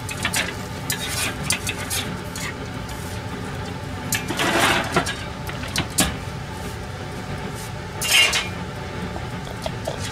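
Metal spatula scraping and clinking against a metal pan in a toaster oven while grilled salmon is lifted off it. Scattered clinks and scrapes, the loudest a longer scrape about four seconds in, with a sharp knock about six seconds in and another short scrape about eight seconds in.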